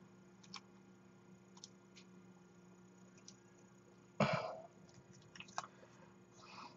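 Faint light clicks of small plastic model-kit parts being handled, with a faint steady hum, and one short cough about four seconds in.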